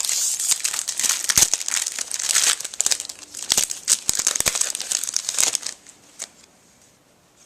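Trading-card pack wrapper being torn open and crinkled, with many sharp crackles and clicks; the crinkling stops about six seconds in and it turns much quieter.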